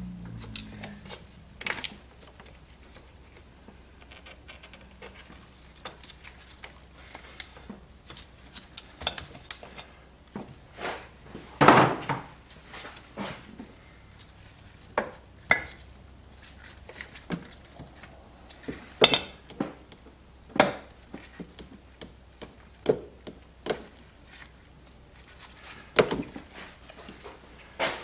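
Metal hand tools, a socket wrench with extensions, clinking and knocking against the brake master cylinder's bolts and fittings in a series of separate sharp clicks, the loudest knock about twelve seconds in.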